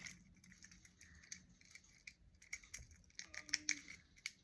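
Fidget cube being played with: faint, irregular small plastic clicks from its buttons and switches.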